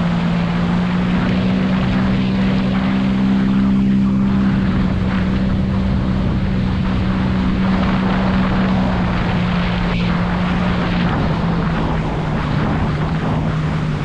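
Jet ski engine running at a steady speed, with a rush of wind and water; its pitch drops slightly about eleven seconds in.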